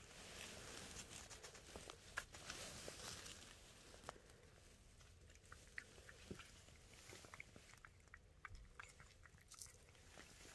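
A cat eating, faint: a tabby-and-white cat eating from a bowl, then licking a liquid treat squeezed from a tube, giving small irregular wet mouth clicks. These are denser in the first few seconds and sparser after.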